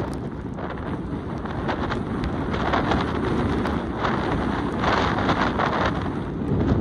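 Gale-force wind buffeting the microphone with a heavy low rumble, over the noise of large storm waves breaking; the hiss of the surf swells several times as waves come in.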